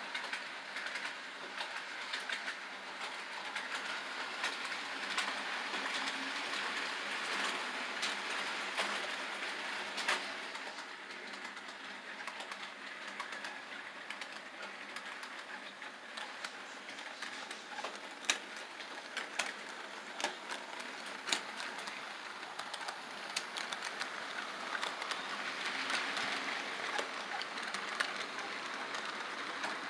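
HO scale model train running on sectional track: a steady whir from the locomotive motors and wheels, with scattered clicks as the wheels cross the rail joints, growing a little louder near the end as the train comes around the curve.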